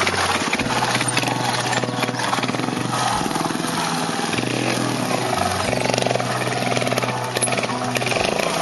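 Trials motorcycle's single-cylinder engine running with rapid throttle changes.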